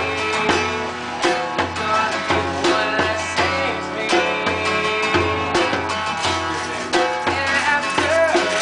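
Live acoustic music: a strummed acoustic guitar and a hand-played djembe keeping a steady beat, with a young man singing along.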